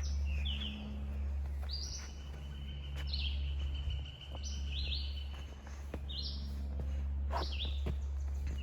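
Wild songbirds calling: short high chirps repeated every second or so, some in quick pairs, over a steady low rumble.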